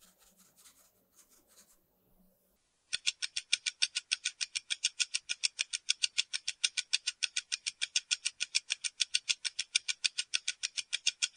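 Faint rustling taps of icing sugar being sifted through a mesh sieve, then, from about three seconds in, a mechanical oven timer ticking fast and evenly, about six ticks a second.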